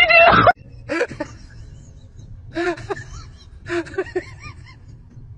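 Short bursts of a person's voice, giggling and exclaiming, over a low steady hum.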